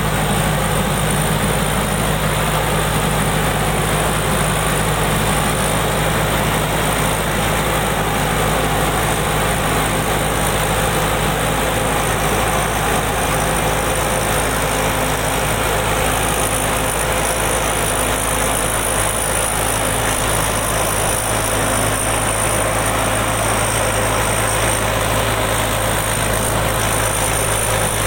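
Combine harvester's engine running steadily, with a constant drone and hum.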